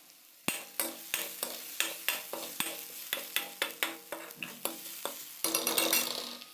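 Steel spoon scraping and knocking against a metal kadai as chopped onions are stirred and fried, with the oil sizzling underneath. The strokes come about four a second, each making the pan ring briefly, and turn louder and denser for the last second.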